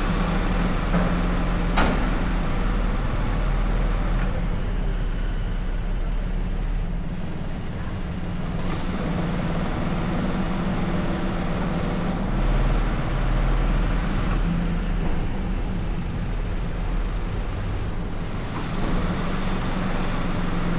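A car driving at night: steady engine hum and tyre and road noise. A sharp click comes about two seconds in, and a fainter one near nine seconds.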